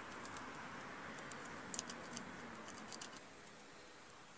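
A few light clicks and taps from handling the metal fuel filler door and its latch, some in quick pairs around the middle, over faint background noise.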